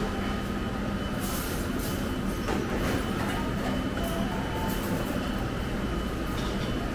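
Steady room noise of a busy buffet restaurant: a low rumble with a constant electrical hum, likely from the ventilation and the heated serving tables, and a few faint clinks.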